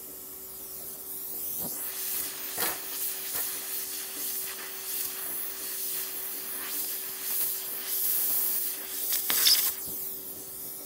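HHO (oxyhydrogen) torch flame hissing against an aluminium rivet, with sharp crackles and pops, starting a couple of seconds in and cutting off shortly before the end. A steady low hum runs underneath.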